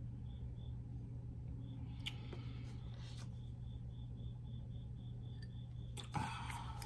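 Tarot cards being handled on a table: cards sliding and rustling about two to three seconds in, then a sharp tap and rustle of a card being picked up near the end, over a steady low hum.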